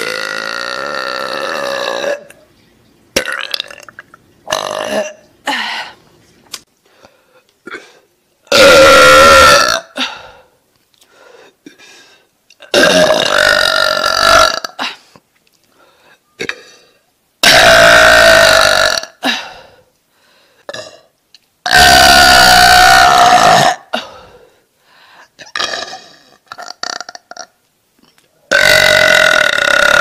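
A woman burping: a run of about six long, pitched burps of one to two seconds each, the first moderately loud and the later ones very loud, with shorter, fainter sounds in the gaps between them.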